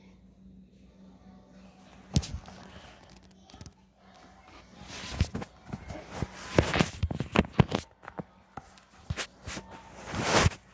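Handling noise: knocks, rustles and scuffs as a camera phone is picked up, swung about and carried, with a sharp knock about two seconds in and denser rustling from about halfway.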